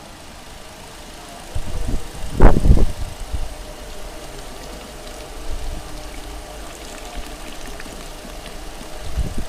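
Fiat Palio's 1.0 Fire four-cylinder engine idling steadily during a cooling-system flush, with a loud rumbling burst about two seconds in.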